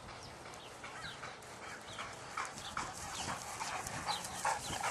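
A dog panting hard as it runs in across grass toward the listener. The quick breaths get louder from about halfway through as it comes close.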